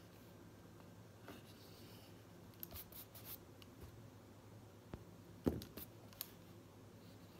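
Pen writing on notebook paper, quiet, with scattered light clicks and scratches and a soft thump about five and a half seconds in as the hand moves over the page. A faint steady low hum runs underneath.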